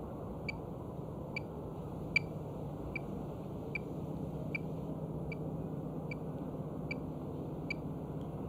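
Radio-tracking receiver picking up a wolf's radio collar: short, even beeps a little more than one a second, over a steady low hiss.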